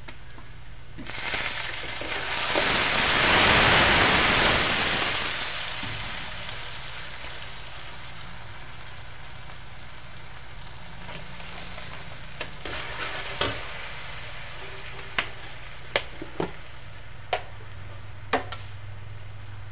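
Minced aromatics and seasoning frying in oil in a steel wok: a sizzle that swells about a second in, holds for a few seconds and then dies down. Later a metal spoon clicks and scrapes against the wok several times.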